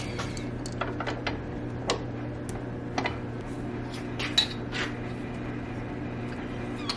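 Metal tools and parts clinking as they are picked up and handled, a handful of separate clinks spread out over a few seconds, over a steady low hum.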